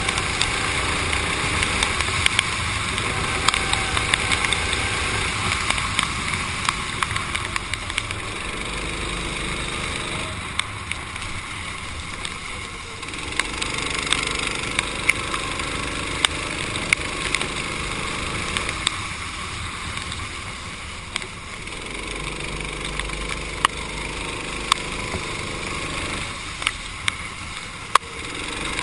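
Racing kart engine heard from on board, revving up along the straights and dropping away three times as the throttle is lifted for corners, over a steady hiss of tyres and spray on wet asphalt, with scattered sharp clicks.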